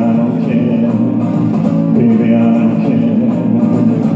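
Amplified Godin 5th Avenue Kingpin hollow-body electric guitar strumming rock-and-roll chords as the song's closing bars.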